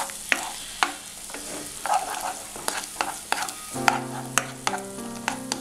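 A spatula scraping and tapping in a nonstick wok as two eggs are scrambled, with a light sizzle of frying under it. A steady tone joins about four seconds in.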